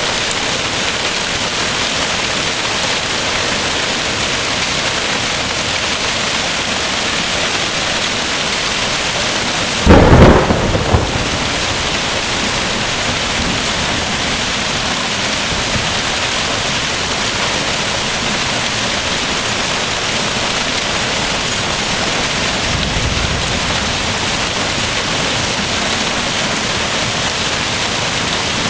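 Hailstorm: hail and heavy rain pelting down steadily, with a sudden loud crack of thunder about ten seconds in and a low rumble later on.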